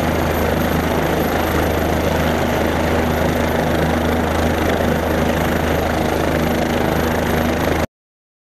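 OH-58 Kiowa helicopter running on the ground, its single turboshaft engine and main rotor giving a steady thrum with a thin high whine above it. It cuts off suddenly near the end.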